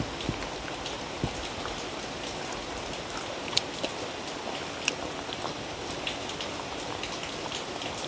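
A dog eating from a wooden bowl: irregular wet crunching and lapping clicks as it chews raw watermelon, carrot, paprika, egg and meat, over a steady hiss.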